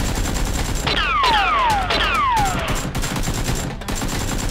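Rapid gunfire sound effects, a dense automatic rattle of shots. About a second in come three falling whistles, like passing rounds.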